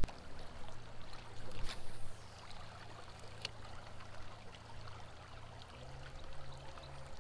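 Faint running water of a small creek, an even trickling hiss with a few light clicks.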